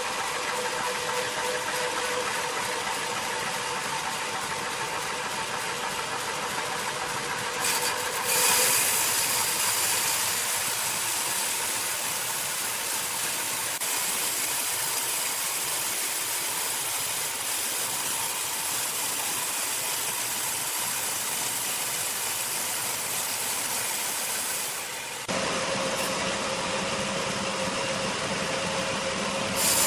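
Large sawmill machinery running steadily: a constant mechanical hum with a hissing sawing noise. The sound changes abruptly about eight seconds in, getting brighter and hissier, and again near the end, as between separate shots.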